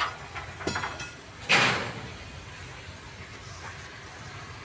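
Steady low background rumble with a few metallic clinks, then a short, loud burst of noise about a second and a half in that fades within half a second.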